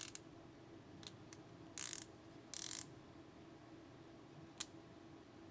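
Wera 416RA ratcheting T-handle's fine-tooth ratchet clicking: two short quick runs of clicks about two seconds in, with a few single clicks before and after.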